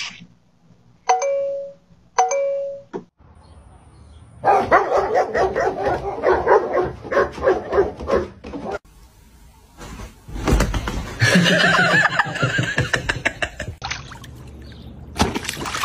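A video doorbell chime rings twice, about a second in and again a second later, as a cat presses up against the doorbell camera. A few seconds of loud, rapid dog vocalising follow.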